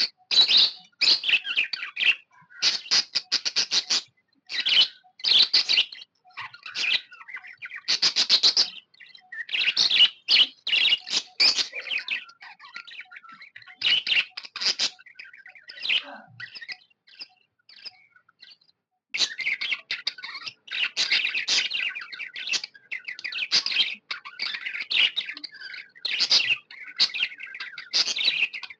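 Budgerigar chirping and chattering in bursts with short pauses, thinning to a few scattered chirps past the middle, then chattering almost without a break for the last third.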